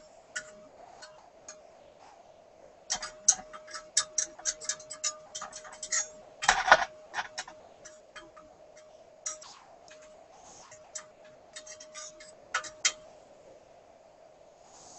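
Sparton 99 tube radio's speaker giving a steady test tone from the alignment signal, fading in and out, under bursts of irregular clicks and crackles, loudest about six and a half seconds in. The trimmers being adjusted bring no change in the output.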